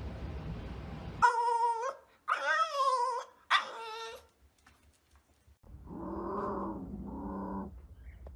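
A dog vocalising: three short, high, wavering whining calls in quick succession, then after a pause two lower, drawn-out calls.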